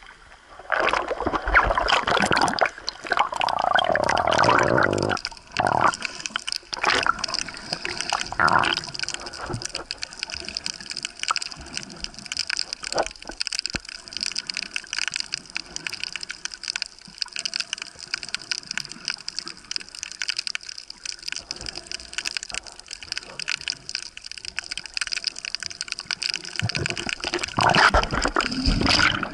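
Sea water splashing and sloshing over an action camera at the surface. It then gives way to quieter, muffled underwater water noise. Louder splashing returns near the end as the snorkeler kicks at the surface.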